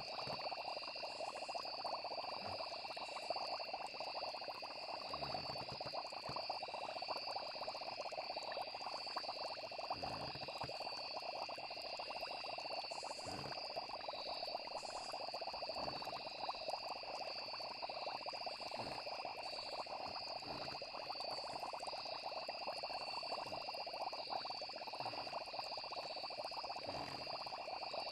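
A night chorus of frogs croaking with insects trilling steadily, joined now and then by soft low thuds.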